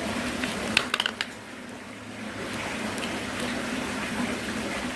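A quick run of light clicks about a second in, as the small plastic unit and its parts are handled, over a steady background hiss and faint hum.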